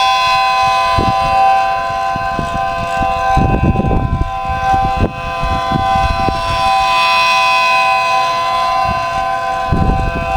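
Homemade 3D-printed miniature ACA P10 12/9-port tornado siren sounding a steady alert: a held dual-tone chord at constant pitch. Wind gusts buffet the microphone, most strongly about three and a half to four seconds in.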